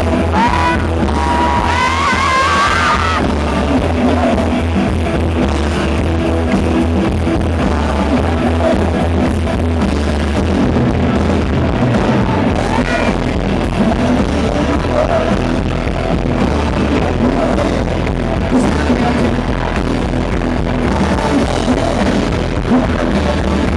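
Rock band playing live, loud and steady, with a heavy bass end.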